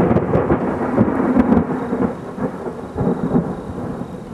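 Thunder: a sudden loud clap with crackling that breaks into a deep rumble, loudest about a second and a half in, then slowly fading.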